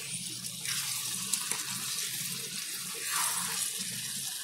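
Okra, onion and tomato curry sizzling in a steel pan while a metal spatula stirs it, with a few brief scrapes of the spatula against the pan.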